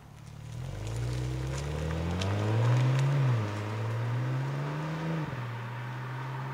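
Alpina B4 Gran Coupé's M3-derived twin-turbo straight-six accelerating hard, revs climbing, falling back at an upshift of its eight-speed automatic about three seconds in, climbing again and falling at a second upshift about five seconds in, then running steadily.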